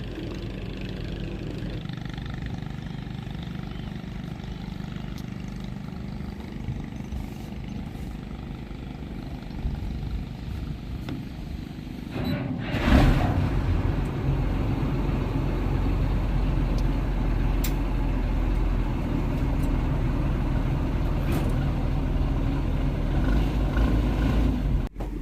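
Boat engine running steadily with a low hum; about halfway through it gets suddenly louder and stays louder, with more rushing noise.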